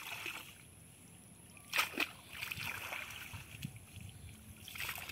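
Cast net being dipped into canal water and drawn back out, with splashing and water running off the mesh, and two sharp splashes close together about two seconds in.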